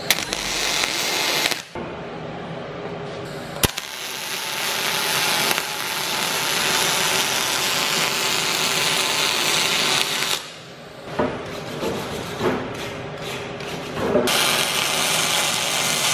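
Electric arc welding aluminium onto a rudder stock: the welding arc runs in long stretches. It breaks off about ten seconds in, gives a few short bursts, then runs steadily again near the end.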